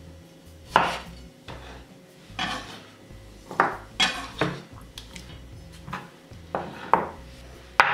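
Quartered cherry tomatoes being gathered off a wooden cutting board and dropped into a glass bowl: a series of about eight irregular knocks and light clinks.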